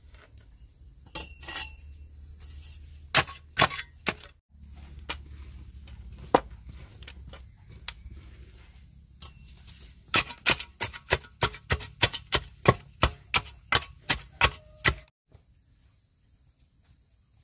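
Chopping with a blade: a few scattered blows, then a steady run of quick strokes at about three a second that stops shortly before the end.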